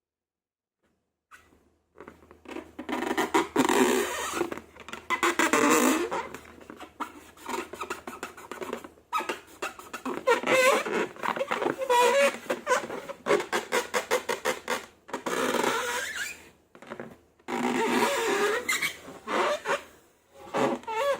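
Slime squelching and balloon rubber squeaking as the slime is squeezed and worked by hand, with many short wavering squeaks and wet squelches. It starts about a second and a half in.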